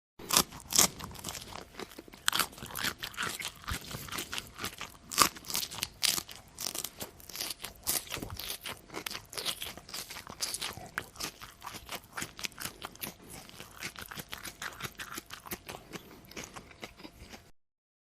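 Close-up chewing of crunchy food: a dense, irregular run of crisp crunches, loudest in the first few seconds, stopping shortly before the end.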